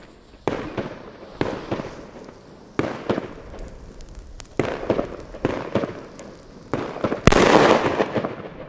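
Sharp firecracker bangs go off one after another while the fuse of a Pyro Union P1 banger (Chiarappa) sprays sparks. About seven seconds in comes the loudest blast, with a long echoing tail: the P1 exploding.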